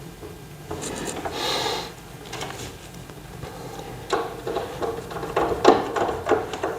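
Bolts being tightened into a TV stand's steel frame with a hand tool: scattered clicks and light metal knocks, with a brief rustle about a second and a half in. The knocks get busier over the last few seconds.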